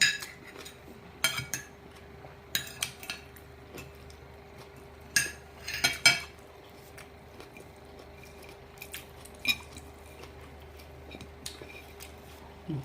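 Cutlery clinking and scraping against a plate while eating, in sharp clinks that come in small clusters every second or two, loudest around six seconds in, over a faint steady hum.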